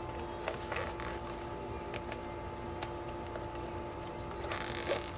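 Plastic markers being handled and placed into fabric storage pockets: a few faint, scattered clicks and light rustles over a steady low hum.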